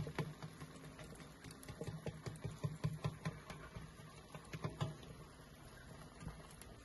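Fat and skin of a stuffed pork roll crackling as it roasts in a charcoal drum cooker: a scatter of irregular small pops and ticks, busiest around the middle.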